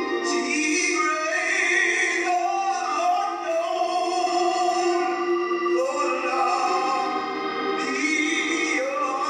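A woman singing a slow gospel hymn solo over accompaniment, with long held notes.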